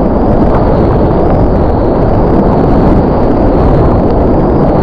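Steady rushing roar of whitewater rapids, picked up close to the water from the kayak itself, with splashing around the boat.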